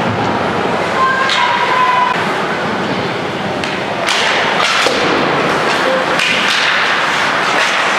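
Ice hockey play in a rink: skates scraping on the ice, with thuds and clacks from sticks, puck and boards, more of them after the faceoff about four seconds in.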